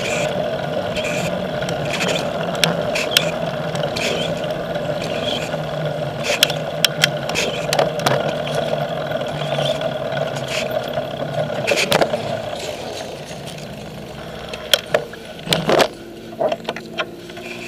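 Bicycle riding along a road, heard from a camera mounted on the bike: a steady rush of tyre and wind noise with frequent sharp clicks and knocks. The rush fades about thirteen seconds in as the bike slows to a stop, leaving a few loud clicks.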